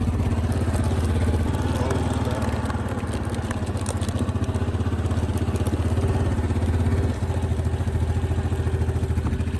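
A motor vehicle's engine running steadily at low revs, with a rapid even chug; its sound steps down slightly about seven seconds in.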